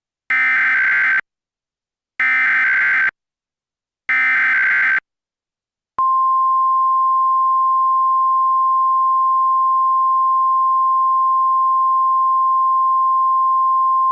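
Emergency Alert System tones. First come three short, harsh, buzzy data bursts of the SAME header, about two seconds apart. Then, about six seconds in, a long steady single-pitched alert tone starts: the Weather Radio attention signal.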